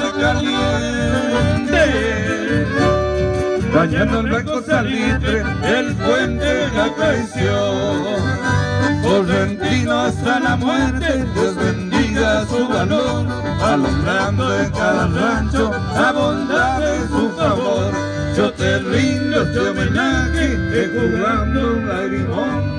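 Live chamamé band playing an instrumental passage between sung verses: accordion leading over strummed guitars, with a steady beat in the low end.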